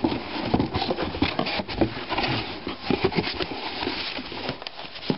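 Paper and cardboard packaging being handled: irregular rustling with many small clicks and taps.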